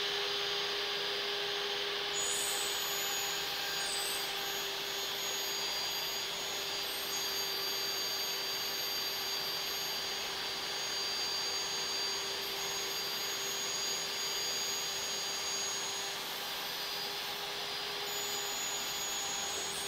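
Portable table saw running steadily with a constant motor whine over a hiss while it rips strips off a wood sheet.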